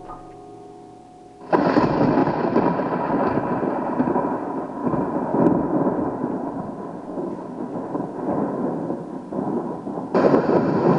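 A thunderstorm-like rushing roar of rain noise cuts in suddenly about a second and a half in and holds steady, with a fresh surge just before the end.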